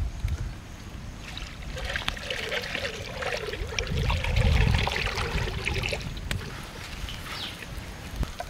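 Cooking oil being poured from a container into a cooking vessel: a trickling, wavering pour that starts about a second and a half in and thins out about six seconds in.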